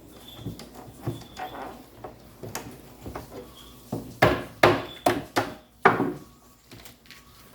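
Wooden packing being knocked and broken apart by hand: a run of sharp wooden knocks and cracks, quick and loudest between about four and six and a half seconds in.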